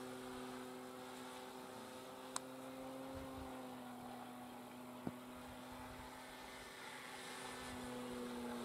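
Distant drone of a Dynam Waco RC biplane's electric motor and propeller in flight, a steady hum whose pitch drifts slightly. Two sharp clicks sound about two and a half and five seconds in.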